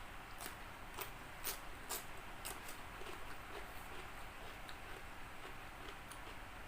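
Chewing crispy fried chicken: crisp crunches about twice a second for the first three seconds, then fainter and more scattered.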